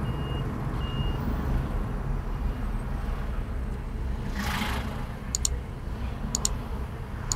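Steady low rumble of a car driving through city traffic. A passing vehicle swells up about halfway through. Near the end a short, high double beep repeats about once a second, three times.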